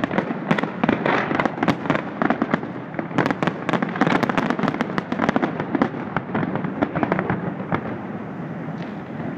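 Fireworks display going off in a rapid barrage of sharp bangs and crackles, thinning out near the end.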